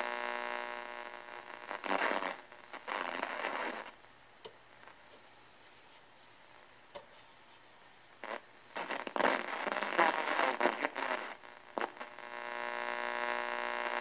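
1965–66 Ford Galaxie push-button AM car radio (Motorola 5TMF) tuned off its station: bursts of static and scraps of station sound over a buzzing hum, dropping almost to quiet for a few seconds in the middle with a few faint clicks, then the hum and noise rising again near the end.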